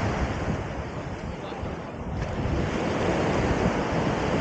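Steady rushing noise of wind on the microphone and waves on open water, aboard a sailing schooner, easing a little for about a second in the middle.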